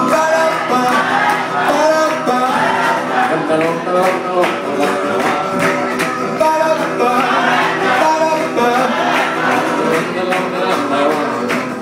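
Live song played on electric keyboards and acoustic guitar, with a man singing over a steady beat.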